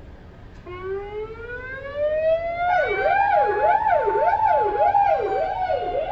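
Police car sirens: one wail starts under a second in, rises slowly and then eases back down. About three seconds in a second siren joins in a fast yelp, sweeping up and down about three times a second.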